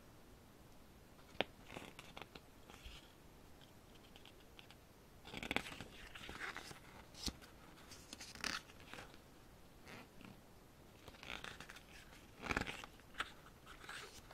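Faint rustling and flapping of glossy photobook pages being turned and handled by hand, in scattered bursts with a few sharp ticks.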